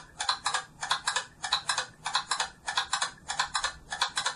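A quick, fairly even series of sharp clicks, falling in small clusters of two or three, like typing or a ticking mechanism.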